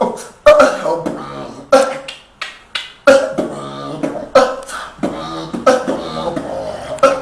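Human beatboxing: sharp kick- and snare-like mouth hits in an uneven, improvised rhythm, with a low hummed note held for about a second midway.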